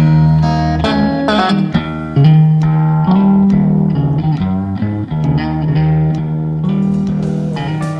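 Music: an instrumental blues-rock passage with electric guitar lead notes over a steady bass.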